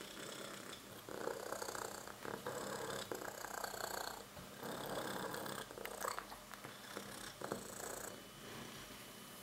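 Persian cat purring, swelling and easing in stretches of a second or two with each breath, with a couple of light clicks in the second half.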